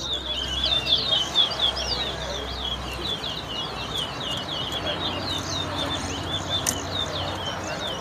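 Towa-towa seed finch singing in a whistling contest: a fast, unbroken stream of short, looping chirped notes with hardly a pause.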